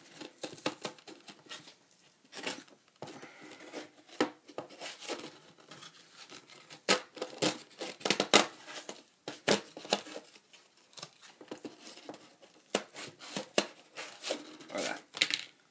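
Small retail packaging being cut open with a blade by hand: irregular sharp snips and clicks, the loudest about eight seconds in.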